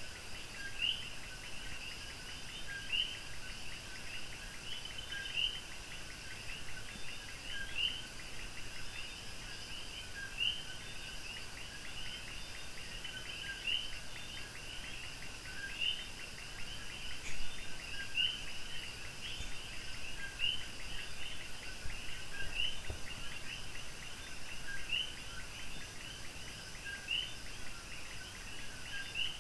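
A steady chorus of small animal calls: a fast, high trill with sharper chirps recurring every second or two.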